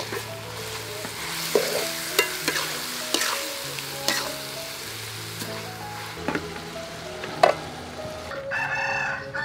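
Metal spatula scraping and clacking against an aluminium wok as shark pieces and shredded ginger are stir-fried, with a frying sizzle underneath. A sharp clank comes a little after seven seconds in as the lid goes on, and a rooster crows near the end.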